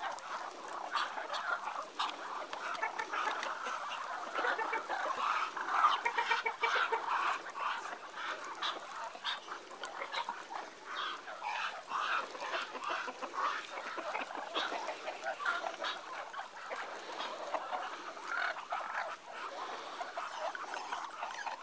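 A flock of Muscovy ducks calling to one another in a steady run of many short, overlapping calls.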